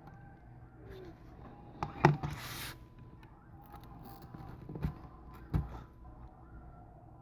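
A few sharp clicks and taps of small tools and parts handled during a tablet teardown, with a brief hiss about two and a half seconds in.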